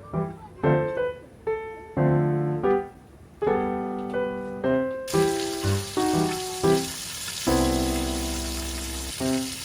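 Background music: a light keyboard melody of short, quickly fading notes, with one longer held chord near the end. About five seconds in, a steady hiss comes in underneath the music.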